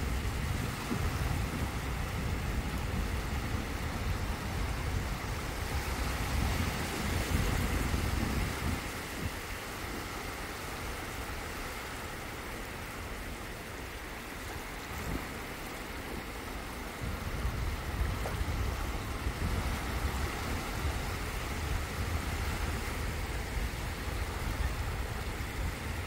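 Small waves lapping and washing in over the shallows at the shoreline, a steady hiss of moving water. Wind buffets the microphone in low rumbling gusts that ease off for several seconds in the middle.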